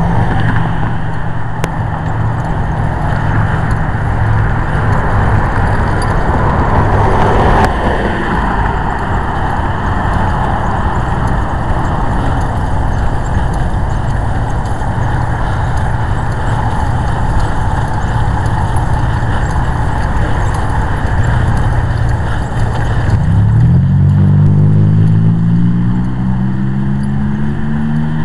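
Motor vehicle running with steady engine and road noise. About 23 seconds in, the engine note climbs as it speeds up, then drops sharply near the end.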